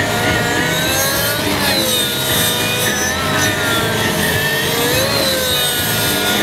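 Radio-controlled model helicopter flying: a steady, loud whine from its engine and rotor, the pitch dipping and rising again several times as it swoops through manoeuvres.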